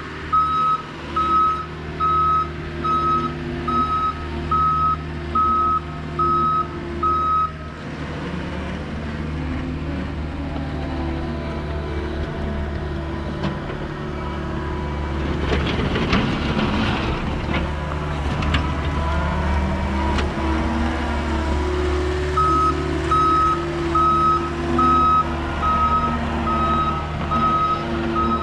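John Deere 325G compact track loader: its backup alarm beeps steadily, about one and a half beeps a second, over the diesel engine running. The beeping stops about a quarter of the way in while the engine runs on, louder and rougher for a few seconds around the middle, and the beeping starts again about three quarters of the way in.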